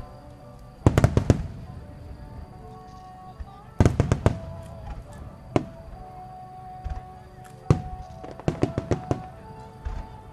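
Starmine fireworks: aerial shells bursting in quick clusters of sharp cracks and booms, about five volleys, the first about a second in.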